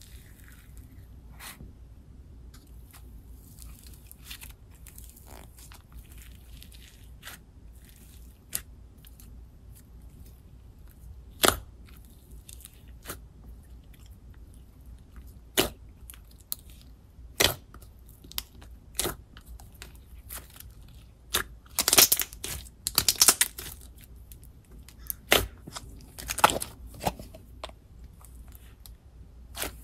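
Hands kneading, stretching and pressing white slime mixed with cookie-style clay: scattered sharp clicks and crackling pops, sparse at first and coming in quick clusters in the second half.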